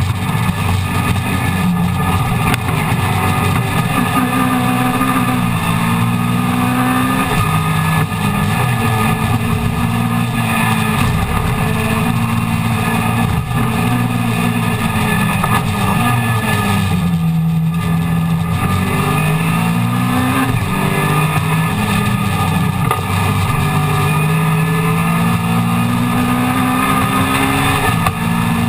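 Mini Miglia race car's A-series engine, heard from inside the cockpit, revving hard under racing load. Its pitch climbs and drops again and again through the gearchanges, with a deeper fall about two thirds of the way through before it pulls back up.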